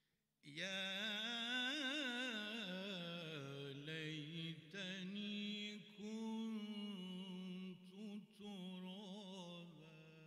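A solo male voice chanting unaccompanied in a long, ornamented devotional melody, the pitch wavering and gliding through several phrases with short breaks.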